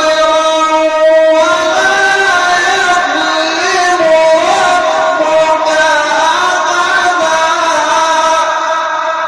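A male Quran reciter's voice in a long, drawn-out melodic phrase of mujawwad-style recitation, the pitch bending and wavering through an ornamented line.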